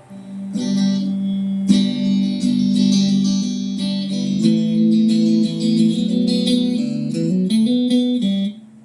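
Electric guitar played through a Mooer GE150 Pro LI multi-effects processor: a run of quickly picked notes that breaks off abruptly near the end.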